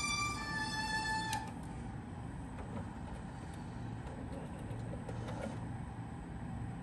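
Violin music from a Denon DCM-500AE CD changer stops abruptly about a second in. A low steady hum follows, with a few faint mechanical clicks as the changer's display moves on to a new disc or track.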